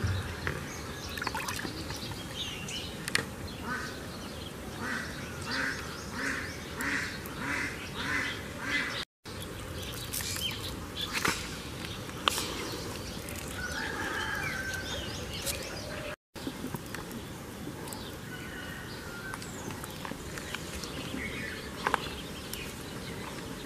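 A bird calls in a run of about ten short, evenly spaced calls, then gives a few more calls later, over a steady outdoor background with scattered light clicks and rustles.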